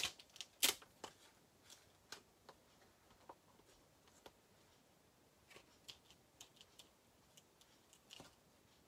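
Faint, scattered clicks and light taps of a clear plastic stamp case and clear stamp sheet being handled, with a sharper click just under a second in and a few more close together near the end.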